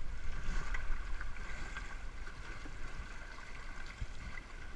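Water sloshing and lapping around the stern of a small boat, with wind rumbling on the microphone and a faint steady tone.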